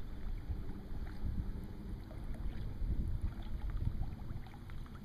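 Low, uneven wind rumble on the microphone, with a few faint short ticks.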